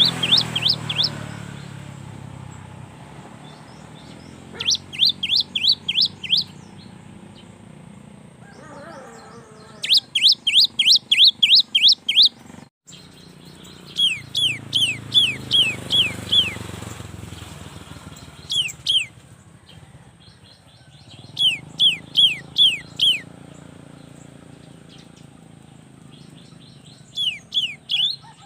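Cinereous tit (gelatik batu) singing: bursts of six to eight quick, high, downward-sweeping notes, each burst lasting one to two seconds and repeated every few seconds, about seven times.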